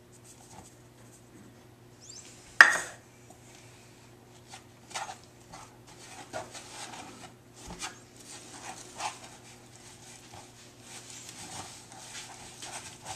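A single sharp knock about two and a half seconds in, then a plastic spatula stirring and scraping a thick flour-and-cornmeal paste in a plastic tub, in irregular strokes, over a faint steady hum.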